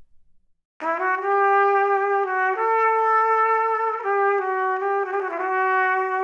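Background music: after a brief silence, a melody on a single instrument begins about a second in, playing long held notes that step to a new pitch twice.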